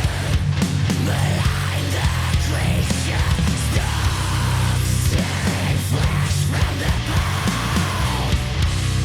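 Death-doom metal recording: heavy, distorted band with a dense low end and rapid drum hits.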